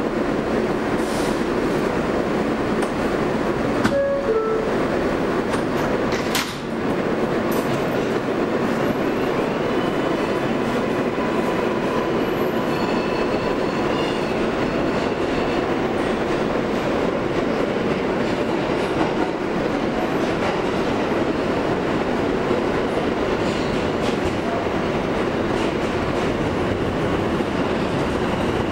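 Inside a Kawasaki R143 subway car: a two-tone door chime about four seconds in and a thud a couple of seconds later as the doors shut. Then the steady running noise of the train pulling out, with wheel clickety-clack on the rails.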